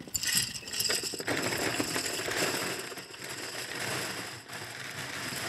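A large bundle of wooden pencils pouring into a tall metal box, a dense continuous clatter of many small knocks as they tumble down inside it.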